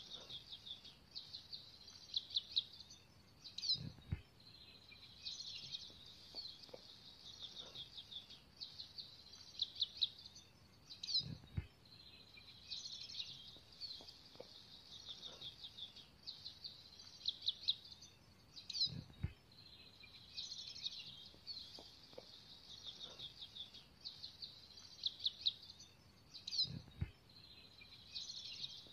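Birdsong: high, rapid trilled and chirping phrases repeating every few seconds. Four low, soft thumps come at even intervals, about every seven or eight seconds.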